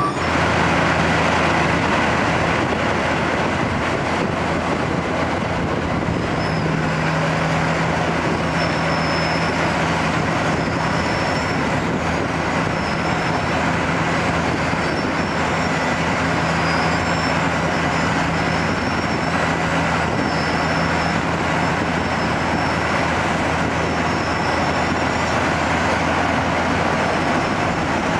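Wirtgen W250 cold milling machine running under load, its drum milling asphalt and its conveyor dropping the millings into a dump truck: a steady, loud engine drone under a dense grinding noise.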